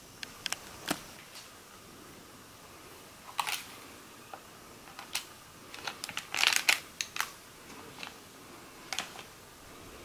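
Hard plastic parts of a Hybrid Magnum toy gun clicking and knocking as they are handled and fitted together: a scatter of sharp clicks, with a denser cluster a little past the middle.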